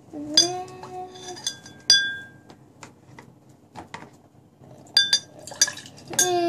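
Metal tablespoons clinking against tall drinking glasses as water is spooned in, each tap giving a short glassy ring. Clinks come shortly after the start, twice around two seconds in, and twice around five seconds in.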